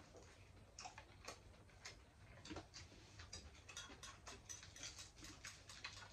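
Faint, irregular clicks of chopsticks tapping against ceramic rice bowls as two people eat.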